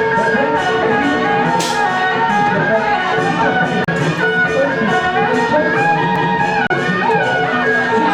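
Instrumental music with a melody moving over a held tone and a steady beat.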